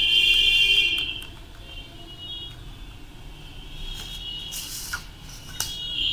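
A high-pitched, alarm-like whistling tone, loud for about the first second, then fading to faint traces, and coming back loud near the end, with a short hiss and a few clicks in between.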